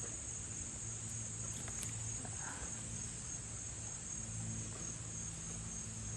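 Steady high-pitched chorus of insects, an even unbroken drone, with a faint low hum beneath it.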